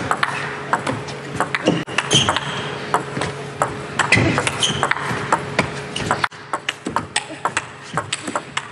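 Table tennis ball clicking back and forth off bats and table in a fast, long rally, a few hits every second. Background crowd noise in the hall drops sharply about six seconds in.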